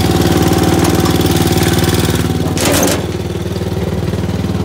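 Gravely 8163-B garden tractor's Onan twin-cylinder engine running steadily after a clutch repair. A brief scraping knock comes just before three seconds in, after which the engine sounds a little quieter.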